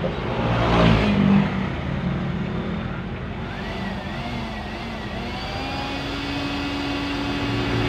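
A motor vehicle engine running steadily, swelling louder briefly about a second in.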